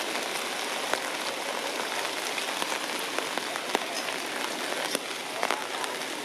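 A steady hiss with a handful of sharp clicks and ticks scattered through it.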